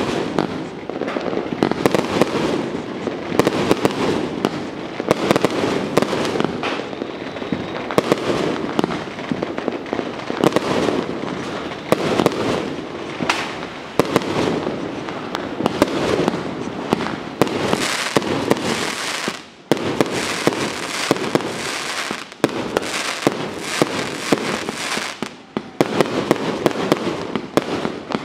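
Fireworks and firecrackers going off without a break: a dense crackle of pops with louder bangs every second or so.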